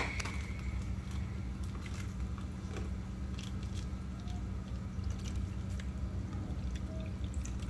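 Plastic fish shipping bags being handled, with soft squishing of the water inside and scattered small crinkles and taps, over a steady low hum.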